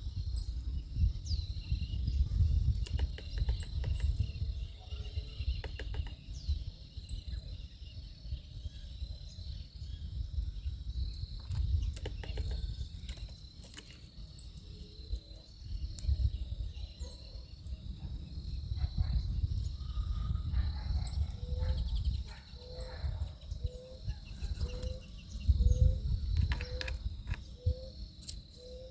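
Backyard ambience: steady high chirring of insects over a gusty low rumble, with scattered clicks. About two-thirds of the way in, a bird starts a run of short low notes, roughly one every half-second.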